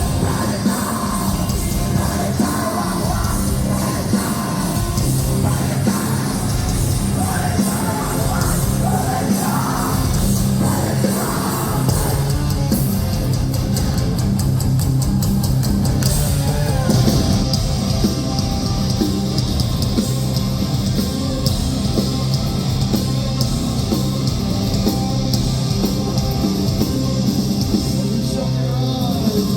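A heavy live metalcore band playing loud, with drums and distorted guitars. Yelled vocals run through the first half.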